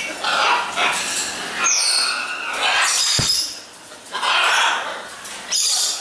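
Parrots squawking: a string of about five loud, harsh, raspy calls, roughly a second apart.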